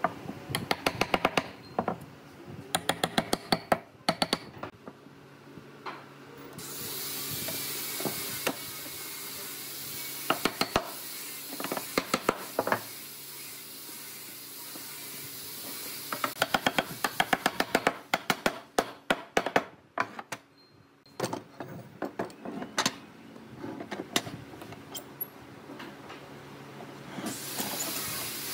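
Quick runs of sharp wooden knocks and clicks as a pine frame is fitted together and clamped, with long stretches of steady hiss between them.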